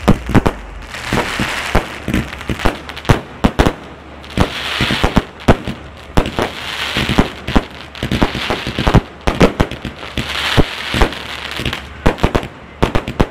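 Aerial fireworks going off in rapid succession: sharp bangs and crackling bursts, with a rushing hiss that swells and fades every two to three seconds.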